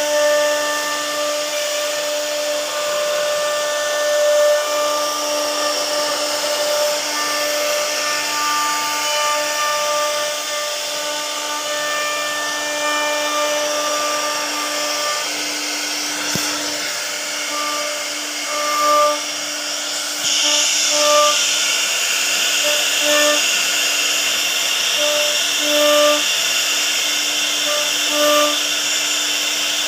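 CNC router spindle running and carving into a wooden door panel: a steady machine hum with a cutting hiss, and higher tones that come and go as the head moves. The cutting noise gets louder and brighter about twenty seconds in.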